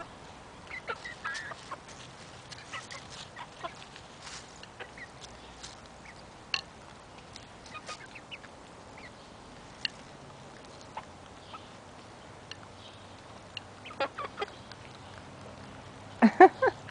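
Hens feeding from a plate, beaks tapping it in scattered sharp clicks, with soft clucking. Near the end one hen gives a quick run of three or four loud clucks.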